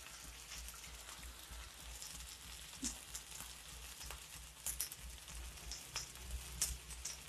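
Dosa frying in a hot pan: a faint steady sizzle with scattered small crackles.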